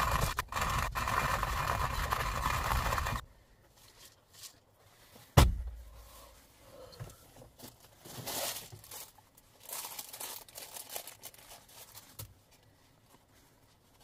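Hand coffee grinder cranked, grinding beans with a steady grating that stops about three seconds in. A single sharp knock comes a couple of seconds later, then faint rustling.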